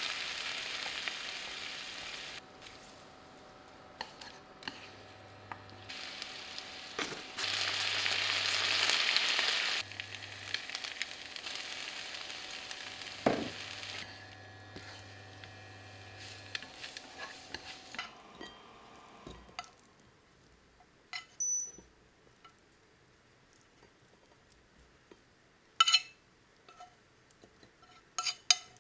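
Stir-fried udon with beef and cabbage sizzling in a nonstick frying pan as it is stirred and tossed with chopsticks. The sizzle swells twice, then dies away about two-thirds of the way through. A few sharp clinks come near the end as the noodles are tipped out of the pan onto a dish.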